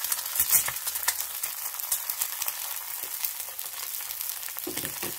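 An egg frying in oil in a nonstick pan, sizzling steadily with frequent small crackles and pops.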